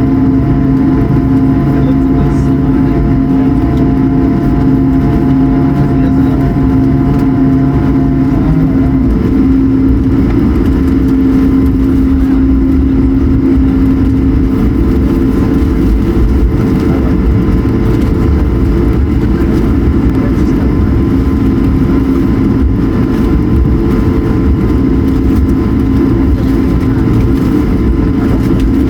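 Airbus A220-100 cabin noise while taxiing: the Pratt & Whitney PW1500G geared turbofans running at taxi power, a steady loud rumble with several held humming tones. One of the lower hums drops out about eight seconds in.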